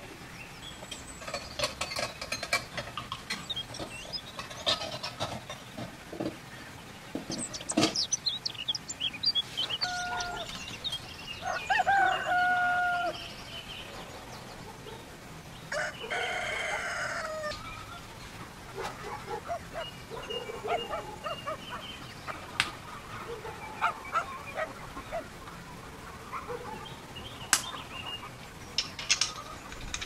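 A rooster crowing, loudest about a third of the way in, with other birds chirping and scattered light clicks of small metal pipe fittings being handled.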